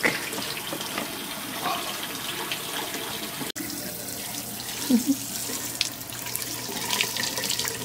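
Tap water running into a sink in a steady stream as a newborn's hair is rinsed under it. The sound cuts out for an instant about three and a half seconds in.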